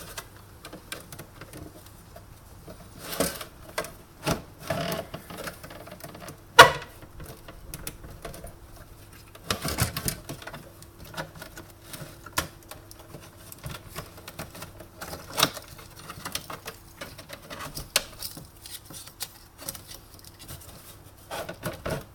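Irregular clicks, taps and knocks of tools and parts being handled while an espresso machine is taken apart, with one sharp knock about six and a half seconds in, over a faint steady hum.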